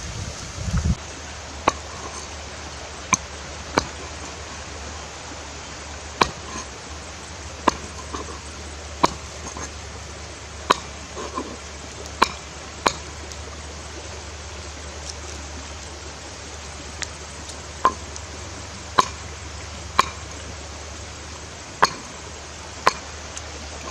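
Cleaver chopping skinned snake meat on a round wooden cutting board: sharp knocks of the blade striking the wood, irregular, roughly one a second, with a pause of a few seconds midway, over a steady hiss.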